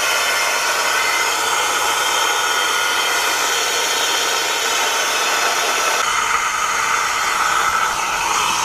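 Homemade turboshaft engine rig after its fuel has been shut off: a steady rush of air with a held whine, as air is kept moving through the turbine.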